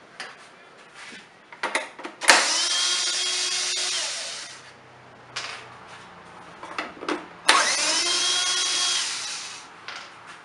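Power drill/driver run twice, about two seconds each: the motor whines up to speed, holds a steady pitch, then winds down, spinning screws out of the blower's engine covers. Short clicks and knocks of the tool being handled come between the runs.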